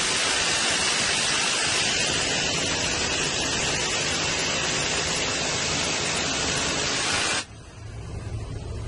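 Door-mounted M134 Minigun, a six-barrel 7.62 mm rotary machine gun, firing from a Black Hawk helicopter in one long unbroken burst that cuts off abruptly about seven and a half seconds in. After it stops, the helicopter's low engine and rotor drone is heard inside the cabin.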